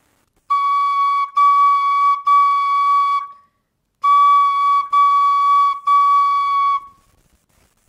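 Brass tin whistle playing C-sharp six times at one steady pitch, in two groups of three tongued notes with a short pause between the groups. The note uses the alternate fingering, with the right ring finger closing the bottom hole to steady the hands.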